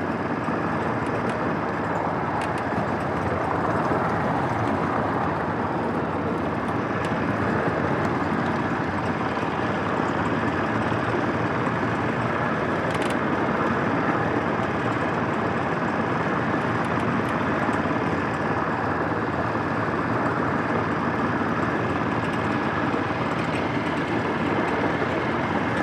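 A 7.5-inch gauge ridable miniature train running steadily along its track.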